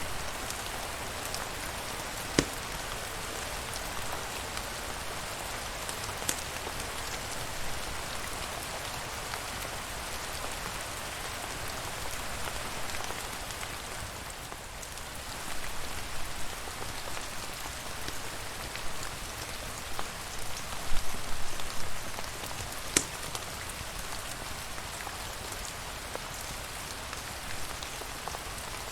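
Steady rain falling, an even hiss of drops, with a few sharp clicks standing out and a louder, more irregular patter for several seconds past the middle.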